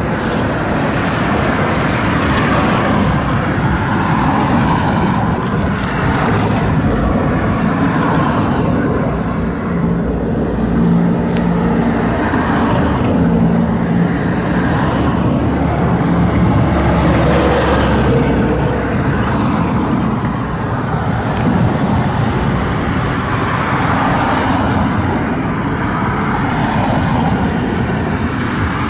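Steady road traffic noise from passing motor vehicles, with an engine hum standing out for a few seconds in the middle.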